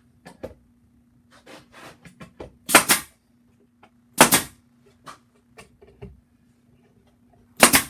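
Pneumatic nail gun firing three times, each shot a sharp bang with a short hiss of air, as the roof boards are fastened together; light knocks of wood being handled come between the shots.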